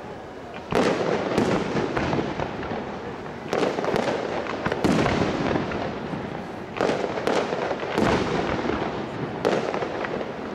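Aerial firework shells bursting, about eight sharp bangs at irregular intervals of roughly one to two seconds, each trailing off into crackle and echo that dies away before the next.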